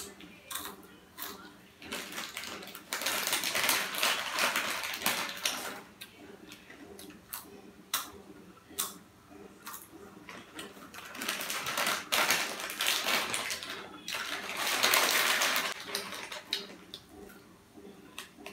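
Lay's potato chips being eaten from a crinkly foil packet: crunching and packet rustling. Several bursts of rustling last a second or more, with scattered sharp crackles between them.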